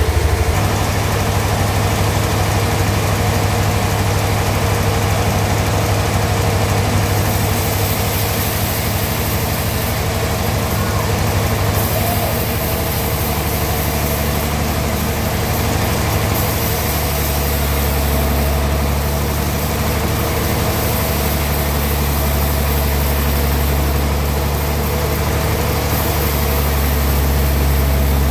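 Engine of a portable sawmill running steadily under load, with a low hum that drops in pitch about two-thirds of the way through and a high hissing that comes and goes several times.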